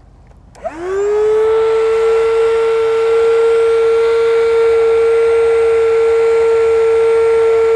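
Sea Eagle electric air pump switched on with a click about half a second in. Its motor rises in pitch over about a second, then runs with a steady, loud whine, blowing air through its hose into an inflatable catamaran pontoon.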